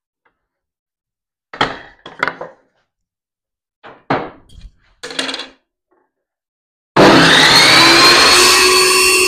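A few clunks and knocks, then about seven seconds in a Total TS526943 2600 W table saw is switched on and its motor spins up to speed with a loud, high whine.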